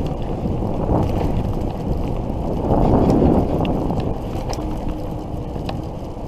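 Wind buffeting the microphone while riding an electric bicycle on a paved path, a steady rushing rumble with a few faint clicks; the wind swells louder about three seconds in.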